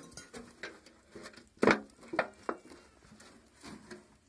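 Thin sheet metal of a square tin can being handled and bent by hand, giving a series of tinny knocks and clatters. The loudest comes about one and a half seconds in.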